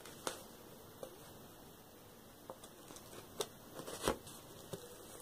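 Paper sticker being peeled from its backing sheet by hand: scattered soft crinkles and small clicks of paper, the loudest about four seconds in.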